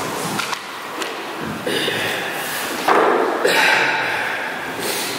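Handling noise from an electrical cord and light bulb being moved and set down on a wooden floor: rustling and knocks, with a sudden louder noise about three seconds in.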